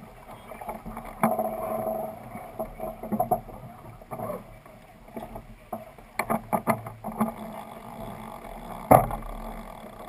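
A Dufour 45e sailing yacht under way: a steady rush of water and wind. Over it come scattered clicks and knocks of deck gear as the crew work the winches and lines, with a quick run of clicks around six to seven seconds in and a sharp knock, the loudest sound, about nine seconds in.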